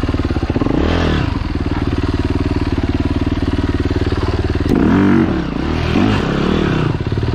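Trail motorcycle engine running steadily, with the throttle opened and closed so the revs rise and fall about a second in, and again several times from about five to six and a half seconds, the loudest near five seconds.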